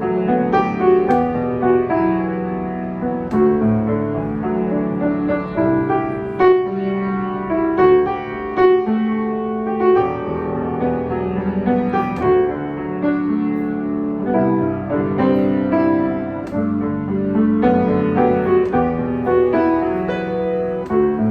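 Yamaha C7 grand piano played with sustained chords under a melody line, notes struck and left to ring.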